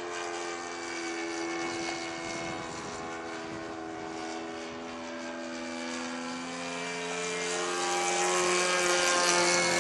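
Radio-controlled model airplane's motor and propeller droning in flight overhead, a steady pitched buzz that shifts in pitch a little partway through and grows louder over the last few seconds.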